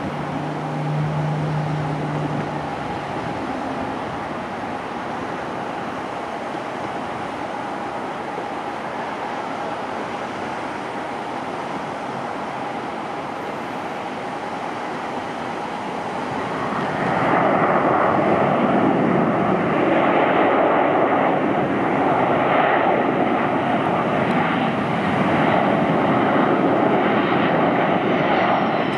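Distant jet engines of a Boeing 717-231, two Rolls-Royce BR715 turbofans, on landing. The sound is steady at first, then grows much louder about two-thirds of the way in as the jet decelerates on the runway, with the engines spooled up for reverse thrust.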